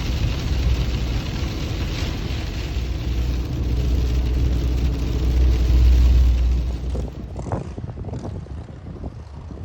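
Car road noise heard from inside the cabin on a wet highway: a steady low drone with tyre hiss, easing off about seven seconds in.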